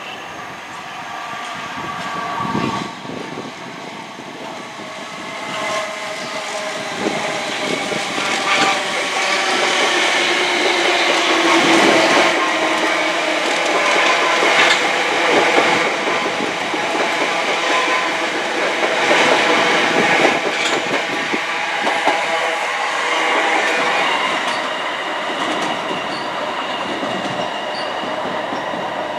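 Passenger train passing close by with a steady whine. Its wheels click over rail joints, and it builds to its loudest about halfway through before easing off.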